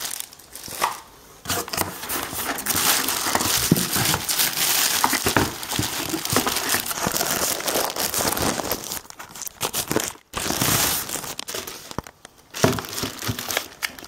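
Plastic packaging bags crinkling and rustling as vacuum cleaner parts are handled and unwrapped, with a few short pauses.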